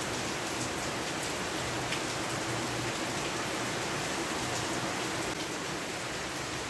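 Steady rain falling: an even hiss with a few faint drop ticks.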